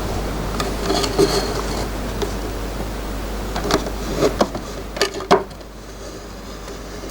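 Scattered light clicks, taps and rustles of hands working wires and small electrical parts into a control box, over a steady low hum that drops away about halfway through.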